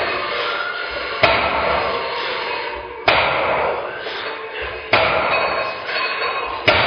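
A loaded barbell's plates knocking down on the floor at the bottom of each fast deadlift rep, four times, about every two seconds, over background music.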